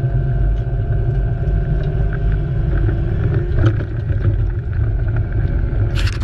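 An excavator's diesel engine running steadily with a low rumble, with a few knocks and clanks from the machine and a brief loud burst of noise near the end.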